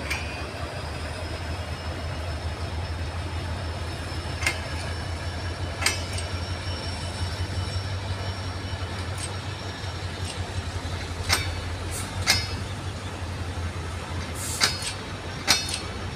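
Bangladesh Railway intercity passenger train rolling past: a steady low rumble with sharp clacks of wheels over rail joints, mostly in pairs about a second apart, and a faint high wheel whine in the first half.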